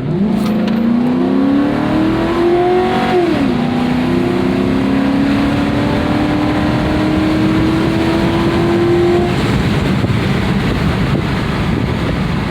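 Ford Crown Victoria Police Interceptor's 4.6-litre V8 under hard acceleration: the engine pitch climbs, drops sharply at an upshift about three and a half seconds in, then climbs steadily again until the throttle comes off about nine seconds in, leaving steady road and tyre noise.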